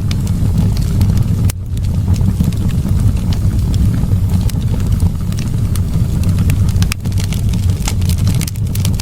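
Wood fire burning in a fireplace: a steady low rumble of the flames with frequent sharp crackles and pops scattered throughout.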